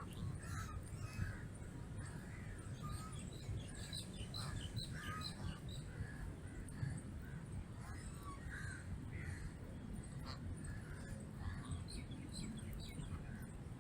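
Geese calling faintly, short honks scattered throughout, over a steady low rumble.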